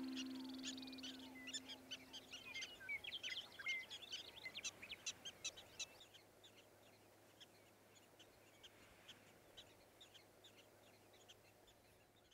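The last chord of the soundtrack music fades out over the first few seconds. Under it and after it comes a faint, scattered chorus of many short, high-pitched animal chirps, busiest in the first half and thinning out toward the end.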